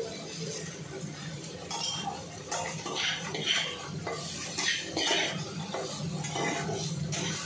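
Metal spatulas scraping and clinking against steel kadais as raw mutton pieces with spice paste are stirred and turned, several strokes a second, over a steady low hum.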